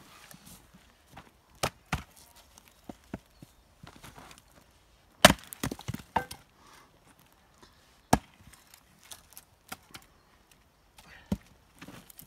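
Double-bit axe chopping into log rounds on a chopping block, splitting them: five or so sharp single chops a few seconds apart. The loudest, about five seconds in, is followed by a short clatter.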